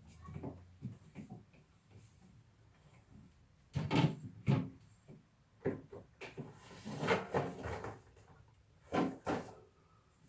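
Knocks and clunks of fridge drawers, shelves and containers being handled during fridge cleaning, in several separate strikes from about four seconds in, with a longer rustling stretch near the middle.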